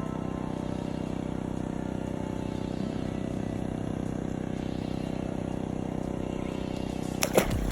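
A steady, unchanging mechanical drone from a running engine or motor. A single sharp knock sounds near the end.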